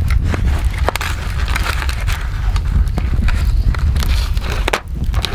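Wood fire crackling, with scattered sharp pops over a steady low rumble.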